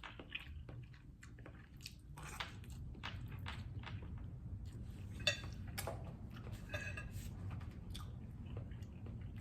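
Close-miked chewing of noodles, with many short wet clicks and mouth smacks scattered through, over a steady low hum.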